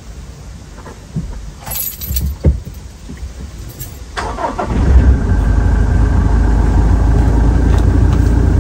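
A few knocks and clicks, then the Toyota Prado 150's 2.8-litre four-cylinder turbo-diesel is cranked about four seconds in. It catches and settles into a steady idle.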